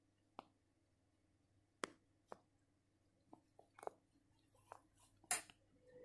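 Candy front-loading washing machine paused mid-wash with its drum still: a faint low hum with a dozen or so scattered sharp clicks and ticks, coming more often toward the end, the loudest about five seconds in. Right at the end the drum motor starts up again.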